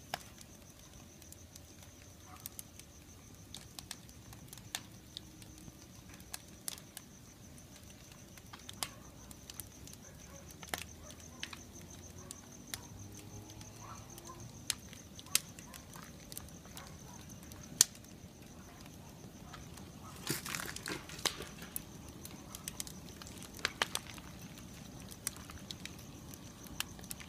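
Firewood burning in a fire pit made from a metal tumble dryer drum, crackling with sharp, irregular pops every second or so and a quick flurry of them about twenty seconds in.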